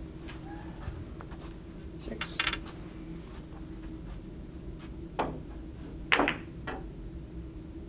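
Sharp clicks of billiard balls on a pin-billiards table: a small click about two seconds in, then two louder ones about a second apart past the middle, the second the loudest, with a faint click just after it.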